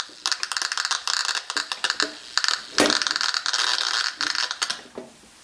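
AudioPrism power-line noise sniffer's speaker giving out EMI and RFI interference on the mains as harsh crackling, buzzing static. About five seconds in it drops away to a faint hiss as a Blue Circle BC86 MkII power line filter is plugged in and filters the interference.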